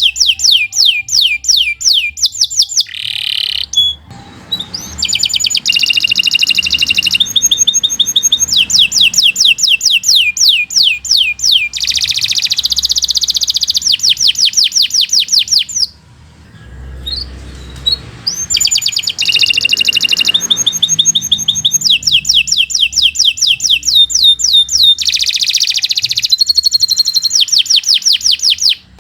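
Domestic canary singing a long, fast song of rapid repeated trill notes, about six a second, its phrases changing every second or two. There are short breaks about four seconds in and again past the middle.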